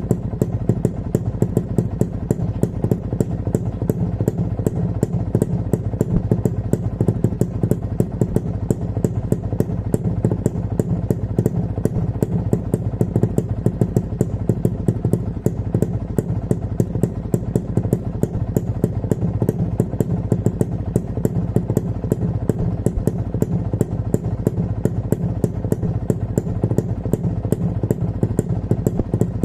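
2001-model Kawasaki motorcycle engine idling steadily, warm after a ride, with a fast, even ticking over the engine note.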